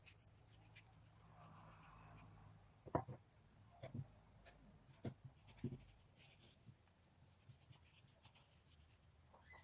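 Near silence with faint scratching and a few short, light knocks, the loudest about three seconds in.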